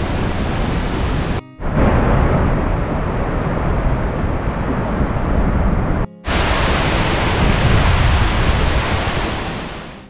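Waterfalls roaring steadily at close range, a loud even rush of falling water. The sound cuts off and restarts twice, about one and a half seconds in and about six seconds in, then fades near the end.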